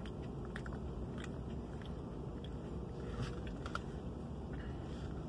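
A man biting into and chewing an al pastor burrito: scattered small mouth clicks over a steady low background hum.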